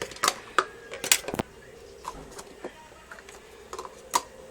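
Scattered sharp clicks and taps of plastic toy pieces being handled, several in the first second and a half and one more near the end, over a faint steady hum.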